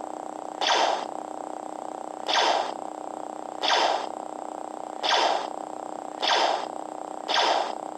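AliExpress lightsaber's sound board playing its second sound font: blaster-deflect effects triggered six times, roughly every second and a half. Each is a short burst over the steady background hum of the blade.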